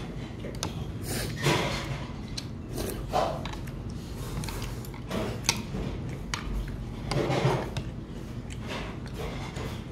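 A man eating jjamppong noodles: chewing and slurping, with several short louder slurps and light clicks of steel chopsticks and a spoon against the food tray.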